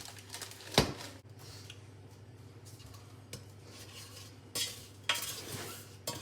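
A metal spoon knocking and scraping in a saucepan while stirring a melting mixture of butter, honey and sugar. There is one sharp knock about a second in and a few bursts of scraping and rattling near the end, over a faint steady hum.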